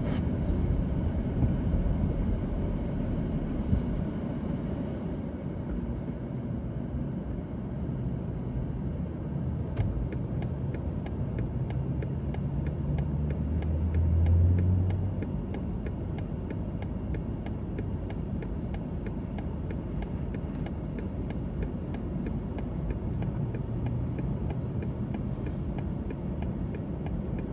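Car being driven on a road, heard from inside the cabin: a steady low rumble of tyres and engine. A low hum swells and fades about halfway through.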